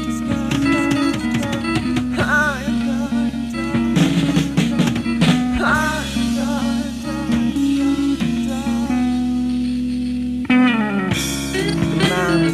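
Rock band music: guitar lines over held low notes, with scattered drum hits. About ten and a half seconds in, a phrase slides downward, dips briefly, then the band comes back in fuller.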